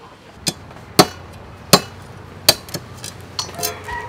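A cleaver chopping on a wooden chopping block, cutting tiny sea snails in their shells: about six sharp chops, less than a second apart.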